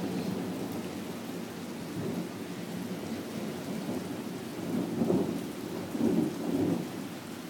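Thunder rumbling over steady rain, swelling louder about five seconds in and again just after six seconds.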